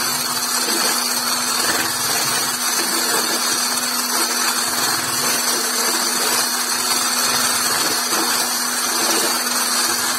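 Electric hand blender with a whisk attachment running steadily, beating eggs and milk into a froth in a plastic bowl.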